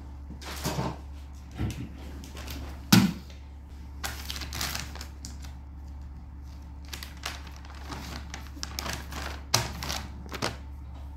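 Plastic wet-wipe pack crinkling and a wipe being pulled out, then rubbed across the bedside table top, with scattered clicks and taps. The loudest is a sharp knock about three seconds in. A low steady hum runs underneath.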